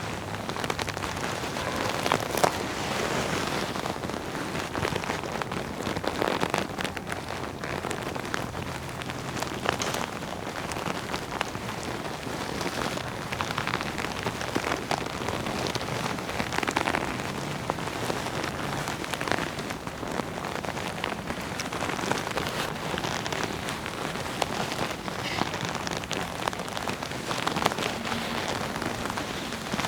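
Leather jacket being rubbed and scrunched by hand: a continuous dense crackle and creak of the leather, swelling with each rubbing stroke every second or two.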